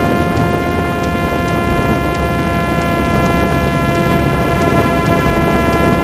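Parrot Disco fixed-wing drone's electric motor and rear pusher propeller whining at a steady high pitch, heard close from the onboard camera, with strong wind rumbling on the microphone. The pitch drops sharply right at the end as the throttle is eased.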